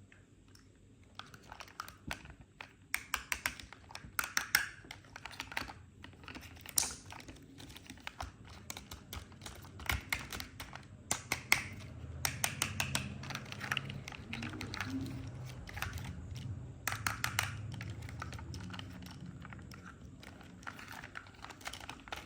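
Toy cars and their plastic packaging being handled, making rapid runs of light clicks and crackles in several bursts of a second or two, with quieter rustling between.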